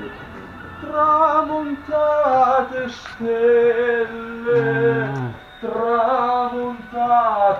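Background music: a singing voice in long held, bending phrases, with no clear words.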